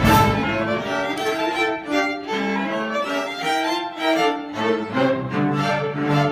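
Student string orchestra playing, violins to the fore, in a busy run of short notes. Lower strings come in underneath about two thirds of the way through.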